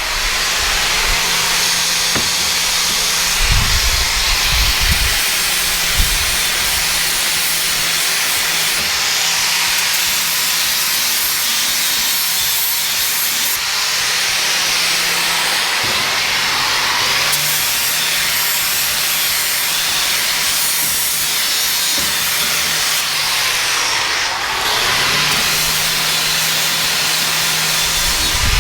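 Angle grinder blending a stainless steel weld: a continuous grinding hiss over the motor's steady hum, which sags in pitch twice as the disc is pressed harder into the metal.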